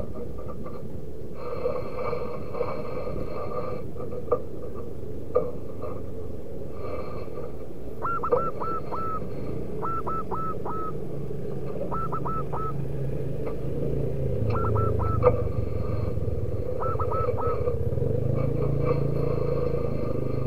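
Zebra dove cooing: short groups of three or four quick notes, repeated every couple of seconds from partway through, over a steady low rumble with a few sharp knocks.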